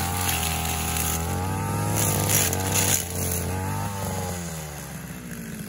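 Backpack brush cutter engine running at high speed while cutting grass. About four seconds in its pitch falls and it quietens as the throttle is let off, winding down toward idle.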